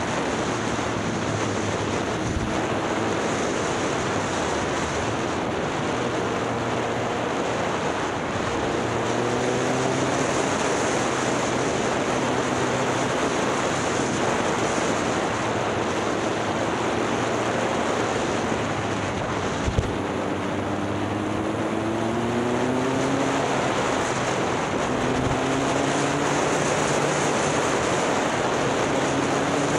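Motorcycle riding along, with heavy wind rush over the microphone and the engine note rising repeatedly and dropping back at each gear change. There is one sharp click about two-thirds of the way through.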